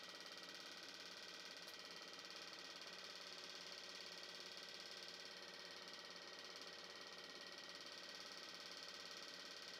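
Near silence: a faint, steady hiss and hum with no change throughout.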